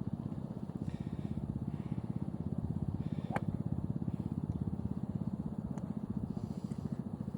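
A small engine running steadily with a rapid low pulse. Two sharp clicks of golf balls being struck at the range come about three and a half and six seconds in.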